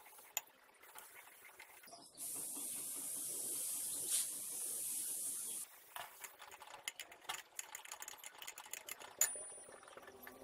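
A steady hiss lasting about three and a half seconds. It is followed by light clicks and taps of metal parts being handled on a bench drill head, with one sharp metallic clink that rings briefly near the end.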